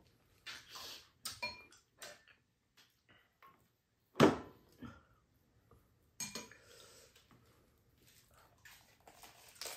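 Spoons and chopsticks knocking and scraping against a pan and bowls during a meal: a few scattered clinks and scrapes, the loudest a sharp knock about four seconds in.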